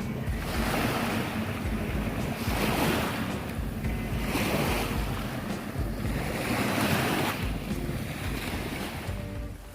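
Sea waves washing in, the rush swelling about every two seconds, with wind buffeting the microphone.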